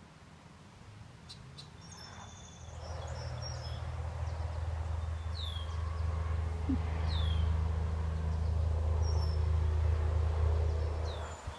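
A motor running steadily with a low hum sets in about two and a half seconds in and cuts off abruptly just before the end. A small bird gives short falling chirps over it, three or four times.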